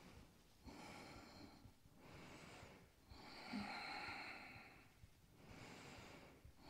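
A woman's faint, slow breathing: four audible breaths in a row, the third the longest and loudest, about three to five seconds in.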